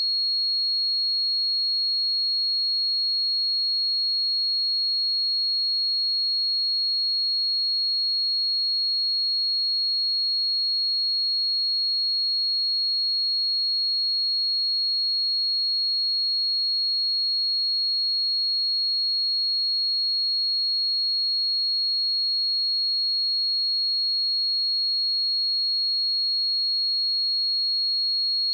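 A pure 4303 Hz sine-wave test tone, held steady at one high pitch and level throughout.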